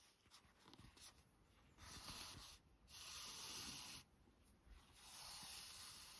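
Yarn being drawn through crocheted stitches with a yarn needle, giving three soft rubbing hisses of about a second each.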